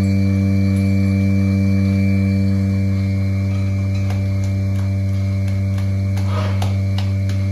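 Steady, loud electrical hum: a low drone with a thin high whine above it, unchanging throughout, with a few faint clicks near the end.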